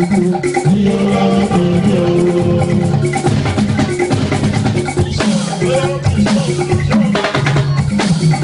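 Loud live music with drums and percussion, and a man singing into a handheld microphone over it.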